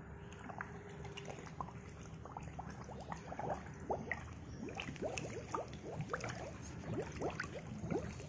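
Water splashing and bubbling in a plastic basin as a waterproof stainless-steel digital platform scale is pushed under by hand. Many short rising bubbling sounds, busier from about three seconds in.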